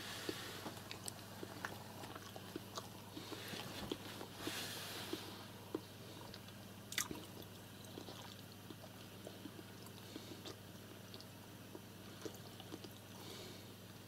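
Quiet room tone: a low steady electrical hum with many faint scattered clicks and soft rustles.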